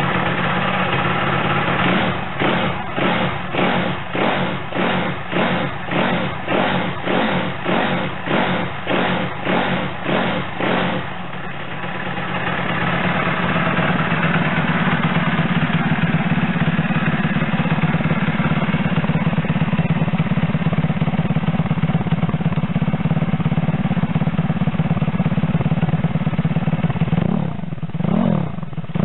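Single-cylinder engine of a Chinese Monkey-style minibike, breathing through an aftermarket muffler fitted with a Honda CBR400RR silencer. It runs briefly, then is blipped in quick, even throttle pulses, about two a second, for some nine seconds. After that it is held at steady higher revs, with a few more blips near the end.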